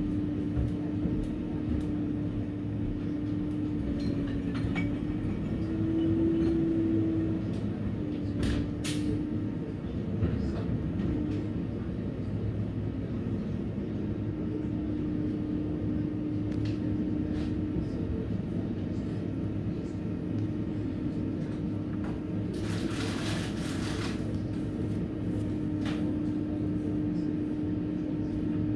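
Garbage truck running at the curb: a steady low engine rumble with a held whine, a few sharp clicks about a third of the way in, and a brief burst of noise lasting about a second and a half near the end.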